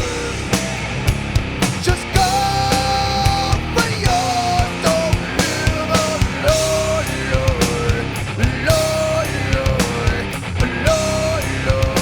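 Nu metal song: drums hit steadily under heavy guitars, with a held melody line that bends between notes over them.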